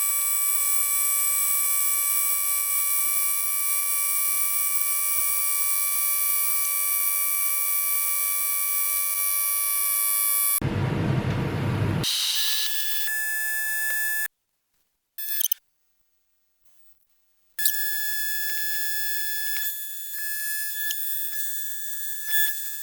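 Steady, high-pitched whine of an air-powered pencil die grinder spinning a carbide burr. About halfway through a short burst of hissing noise breaks in. The whine then comes back at a different, higher pitch and drops out to silence twice.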